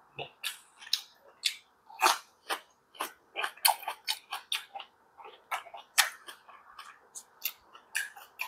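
Close-up chewing of grilled beef rib finger meat: a quick, irregular run of sharp mouth clicks and smacks, several a second, with a faint steady hum underneath. The meat is tough and chewy because its membrane was not trimmed off.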